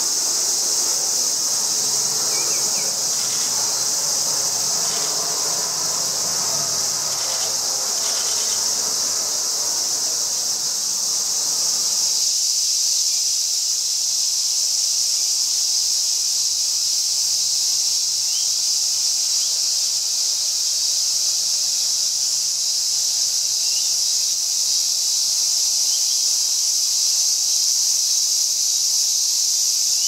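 Steady high-pitched drone of a summer insect chorus. A softer, lower background noise beneath it cuts off abruptly about twelve seconds in.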